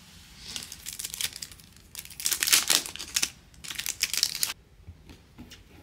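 Crinkling and tearing of packaging being pulled off a new clear plastic storage bin, in irregular bursts for about four seconds, then stopping.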